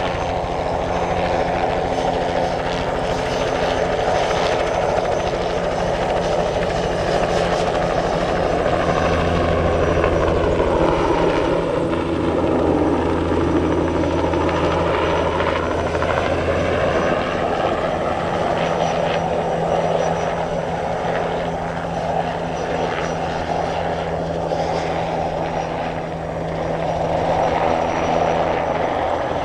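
Bell 206B-3 JetRanger III helicopter, its Allison 250 turbine and rotor running steadily in flight. Part of its sound dips in pitch around the middle and climbs back again.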